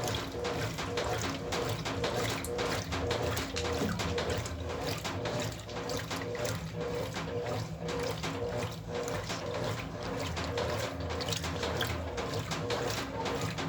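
Brastemp Ative washing machine running its wash cycle: a steady motor hum with a pulsing tone, over water and clothes sloshing in the drum.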